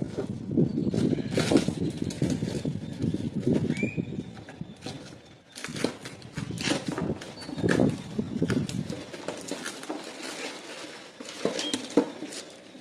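Irregular clicks, knocks and rustling of hands handling parts during a power steering pump swap, busier in the first half and sparser later. A short high chirp comes about four seconds in.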